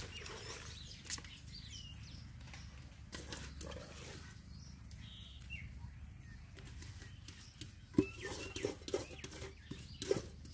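Hands squelching and scooping wet masala-marinated raw chicken pieces in an aluminium bowl and transferring them onto a banana leaf. From about eight seconds in come louder, sharper knocks and scrapes of hand and pieces against the metal bowl.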